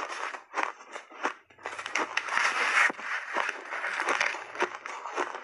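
Chewing a big mouthful of hard refrozen blended shaved ice: irregular sharp crunches, with a dense stretch of continuous crunching between about one and a half and three seconds in.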